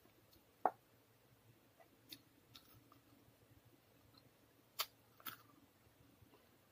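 Quiet mouth sounds of someone chewing food eaten by hand, with a few short sharp clicks. The strongest click comes under a second in and another about five seconds in.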